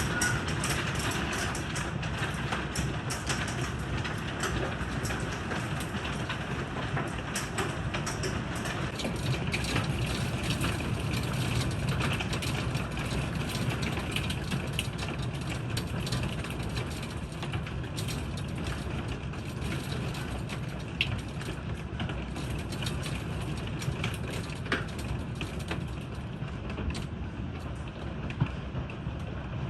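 Hail and heavy rain striking hard surfaces: a steady rush of rain over a dense patter of sharp clicks from hailstones hitting, thinning out to scattered strikes in the last third.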